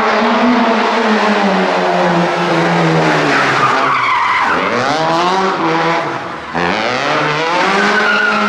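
Citroën Saxo VTS rally car's four-cylinder engine revving hard while the car slides around a barrel, its pitch rising and falling with the throttle, with tyres skidding on the tarmac. The engine note drops briefly about six and a half seconds in, then picks up again.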